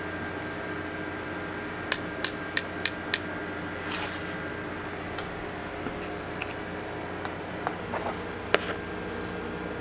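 Light clicks of a metal spoon against a metal tray while powder is scooped over a candied apple: a quick run of five clicks about two seconds in, and a few fainter ones near the end. A steady machine hum runs underneath.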